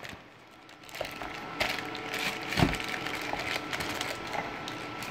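A small desktop Ethernet switch being handled and taken out of its packaging: light rustling and small clicks, with one louder knock about two and a half seconds in.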